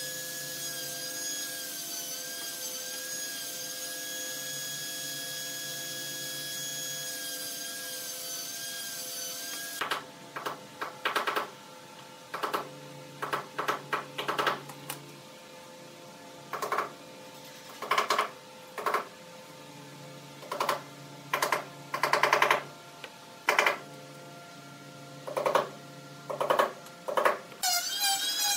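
A steady high-pitched whine for about the first ten seconds. Then a long run of short, squeaky rubbing sounds as small pine triangles are slid and pressed into place on a glued pine board, wood rubbing on wood, one at a time or in quick clusters.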